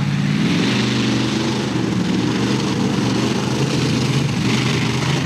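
Mud bog truck engine running hard at high revs as it drives through the mud pit, loud and fairly steady in pitch over a steady hiss.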